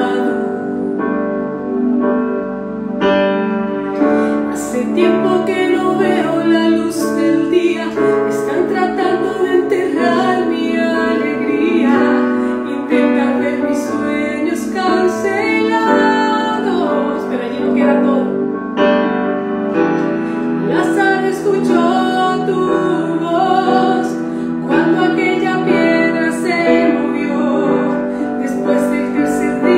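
A woman singing a worship song in Spanish over a piano accompaniment.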